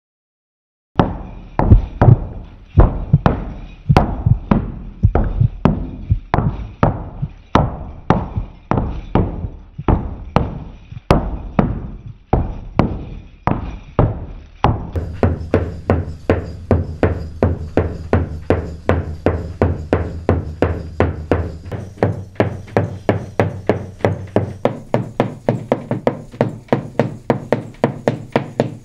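Rhythmic zapateado stamping in Mexican folkloric dance: hard, sharp foot strikes that begin about a second in at two or three a second. About halfway through, a low, steady musical drone joins and the strikes quicken to a faster, denser beat.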